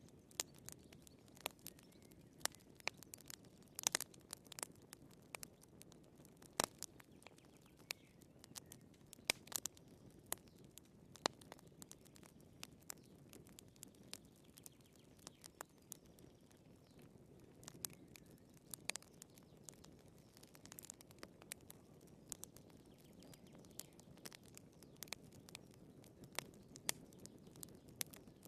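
Wood fire crackling: irregular sharp pops and snaps of burning firewood, some louder than others, over a soft low rush of the flames.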